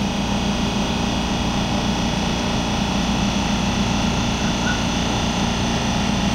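Passenger train running, a steady rumble and hiss with several held tones that does not change.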